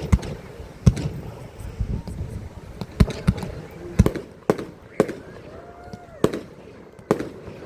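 Fireworks going off: a string of sharp bangs from shells bursting, irregularly spaced about a second apart.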